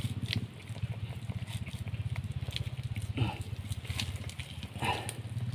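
A steady low hum of a small engine running, with a few faint clicks and scrapes as hands pull a mud crab out of its burrow in wet mud.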